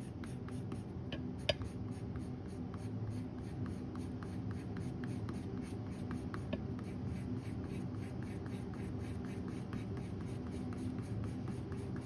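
Colored pencil scratching over toned tan mixed-media paper in short, quick back-and-forth strokes as fur is laid in, with a sharper tick about a second and a half in.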